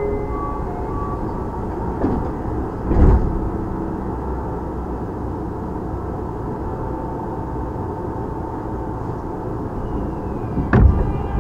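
Tokyu 9000 series electric train with Hitachi GTO-VVVF control, running: a steady rumble of wheels on rail with two heavy thumps, one about three seconds in and one near the end. Just before the end a faint tone falls in pitch.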